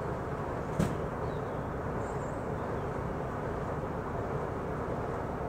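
BR 'Peak' class diesel locomotive's Sulzer engine running steadily as it approaches, with one sharp click about a second in.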